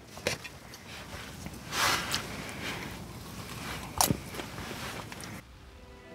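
Knife and fork cutting a grilled bone-in chop on a camping plate: the blade saws and scrapes through the crust, and the cutlery clinks against the plate. There is a sharp clink about four seconds in.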